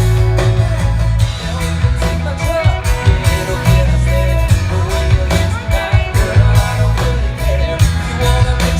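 Live country-rock band playing an instrumental passage between sung lines, with guitars, bass and a drum kit keeping a steady beat.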